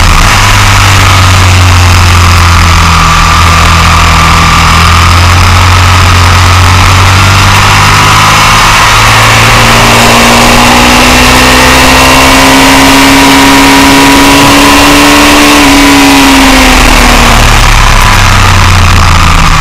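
A motorcycle at track speed, heard through wind noise on the camera microphone mounted low by the front wheel. The engine holds steady at first; about halfway through its note climbs for several seconds under acceleration, then drops off near the end.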